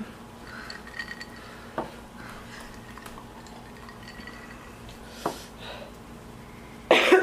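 A drinking glass lifted and set back down on a tabletop, with a few light clinks and knocks. Near the end, a short loud burst of voice.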